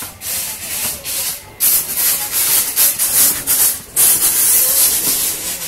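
Air blast driven into a charcoal forge fire to heat a blade: a loud rushing hiss that comes in surges, growing stronger about a second and a half in.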